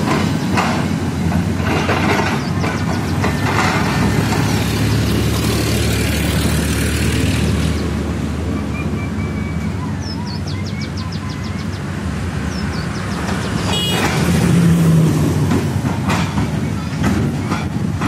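Crawler excavator's diesel engine running steadily under load, with scrapes and knocks as the bucket digs and dumps soil. Road traffic passes alongside, the whole getting loudest about fifteen seconds in.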